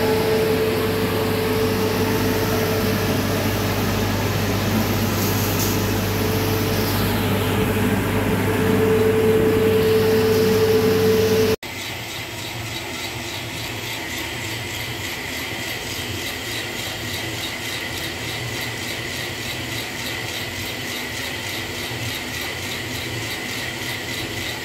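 Coffee roaster running: the cooling tray's motor-driven stirring arms and cooling fan give a loud, steady hum while roasted beans are turned. About halfway through the sound cuts to a quieter, steady running of the roasting drum tumbling green beans, with a faint high whine.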